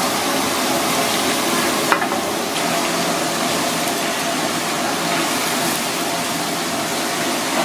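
Pieces of parrotfish deep-frying in a wok of hot oil: a steady, dense sizzle. A single sharp click about two seconds in.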